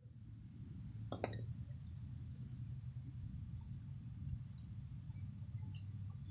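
Steady low rush of water flowing through a small stone-walled irrigation ditch, with a thin continuous high whine over it and a single faint click about a second in.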